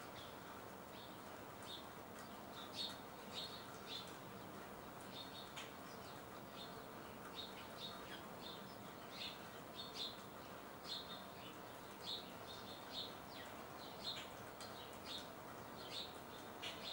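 Birds chirping in the rain: many short, high chirps, a few each second, over a steady soft hiss of rainfall.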